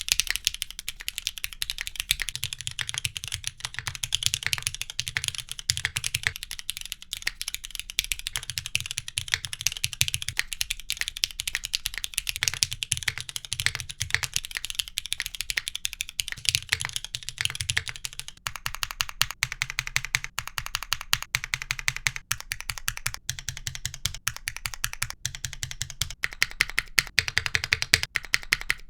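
Steady typing on a Neo60 Core 60% mechanical keyboard with Cherry MX Black linear switches, a dense stream of key clacks. About 18 seconds in it changes to a second board with the same switches, whose strokes are more spaced out and lower-pitched.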